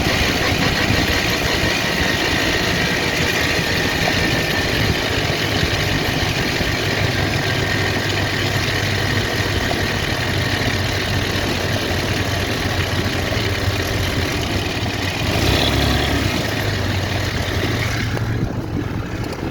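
GSMoon 260's engine running steadily at idle, with a noise the owner finds strange. About four seconds before the end there is a brief swell in the sound, and just before the end the hiss in the upper range thins out.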